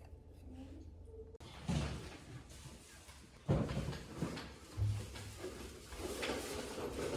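A handful of dull thumps and knocks, about four loud ones spread over a few seconds, like things being set down or handled.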